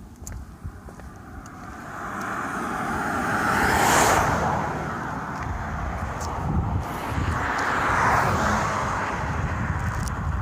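Cars passing on a highway: tyre and engine noise builds to a peak about four seconds in and fades, then a second vehicle swells past near eight seconds.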